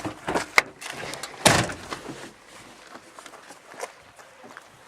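A door being handled and shut: a few sharp clicks, then one loud thud about a second and a half in.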